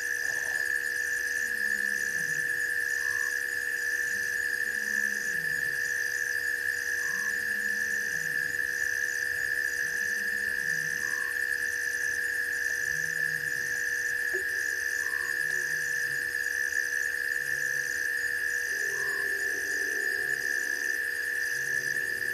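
Night chorus of frogs and insects at a waterhole: a steady high trill, a faster pulsing trill above it, and low falling croaks about every two seconds.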